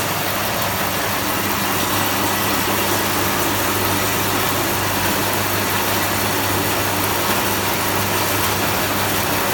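Fish-bait cutting machine running steadily with a constant low hum and a noisy chopping whir.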